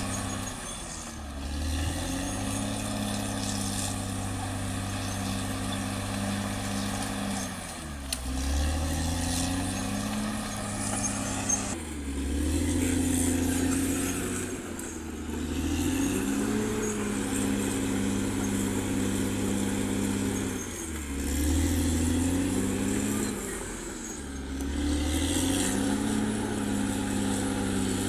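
Caterpillar D6R XL bulldozer's diesel engine running steadily, its note dipping and climbing back up five times.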